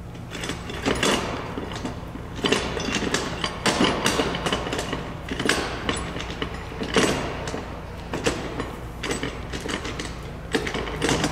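Metal awning bracket being handled on a mounting rail, with irregular scraping, sliding and clunking over a steady low hum.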